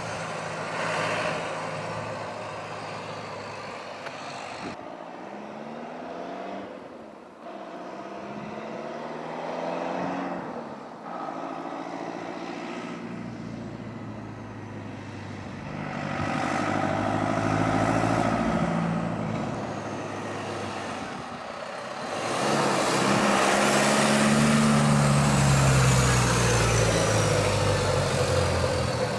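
Turbocharged 4BT Cummins four-cylinder diesel in a Ford F-350 pickup driving, its engine pitch rising and falling as it accelerates and eases off. It is loudest over the last several seconds as the truck comes close, with a high whistle that rises and then falls.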